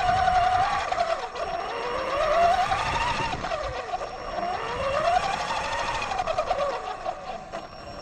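Axial Yeti XL RC truck's electric motor and drivetrain whining as it drives, the pitch climbing and dropping twice as the throttle and speed change.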